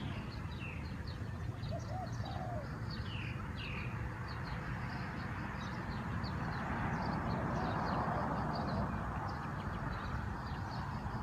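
Spotted dove giving a short, faint coo about two seconds in, with small birds chirping in short high notes throughout over a steady outdoor hiss.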